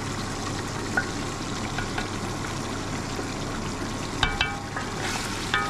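Beef frying in a tomato and spice masala, sizzling steadily as it is stirred, with a spoon clinking against the pot about a second in and several times near the end.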